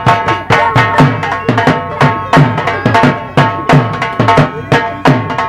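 Rajasthani folk music for a puppet dance: a hand drum playing a fast, even beat of about four strokes a second, its low strokes dropping in pitch, over steady held melody tones.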